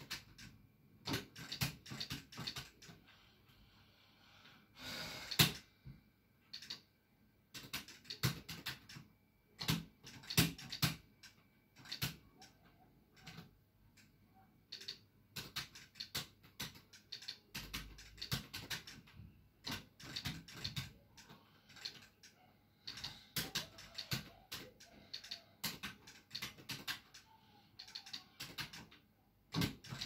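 Arcade fight stick being played hard: bursts of rapid clicking and clattering from the buttons and the Crown 303 joystick lever, with short pauses between flurries.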